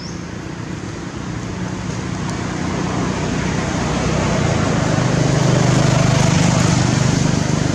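A motor vehicle's engine running, with a steady low hum. It grows louder over several seconds, peaks about six seconds in and eases slightly near the end, as of a vehicle passing by.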